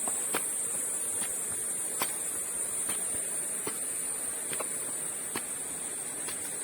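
A steady high-pitched drone of insects, with regular footsteps, a little under one step per second, of someone walking on a path.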